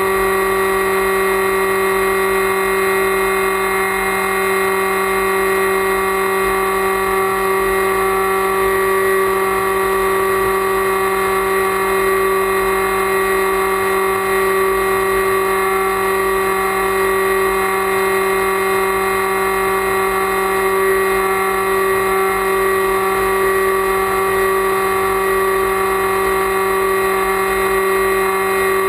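Electric motor and propeller of an FPV flying wing running at a steady throttle: a constant whine held at one pitch, heard from the onboard camera with wind rush on its microphone.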